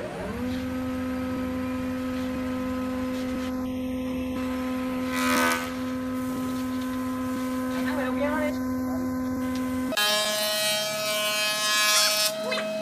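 Taiyo woodworking jointer starting up: a whine that rises in pitch for half a second and then holds as a steady hum. Partway through there is a brief rush of noise. About ten seconds in the sound changes suddenly to a higher, steady whine.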